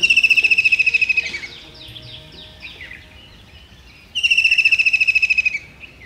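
White-throated kingfisher calling: two loud, fast trills of rapid repeated notes, falling slightly in pitch. The first comes at the start, the second about four seconds in, with fainter trilling between.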